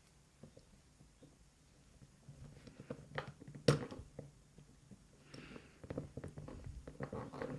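Light clicks and small scrapes of a hand tool working at a padlock during disassembly, starting about two seconds in, with one sharper click a little before the four-second mark.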